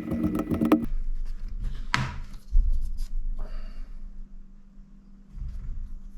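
Hand-tool and leather handling on a work surface: a quick run of close taps for about the first second, then scattered knocks, a scrape and a low thump about two and a half seconds in, over a faint steady hum.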